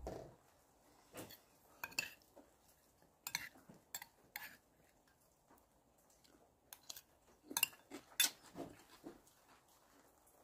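Steel spoon and fork clinking and scraping against a ceramic plate while eating, in short scattered clinks with quiet gaps between.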